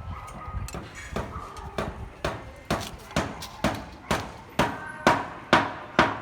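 Regular hammer blows on steel reinforcement bar, about two a second, each with a short metallic ring, growing louder toward the end.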